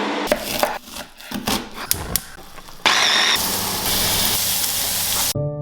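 Kitchen cooking sounds: a quick run of knocks and clatters, then a loud steady rushing noise for about two and a half seconds that cuts off suddenly.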